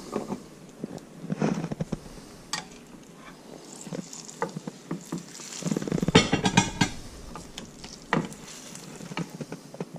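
Slotted metal spatula scraping and tapping against a glass baking dish while lifting baked fish fillets out of their sauce. The scrapes and clinks are irregular, with a denser run about six seconds in.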